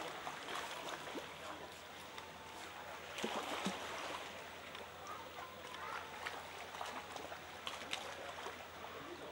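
Water lapping and splashing as a spotted seal pup swims at the surface, with a cluster of louder splashes about three seconds in.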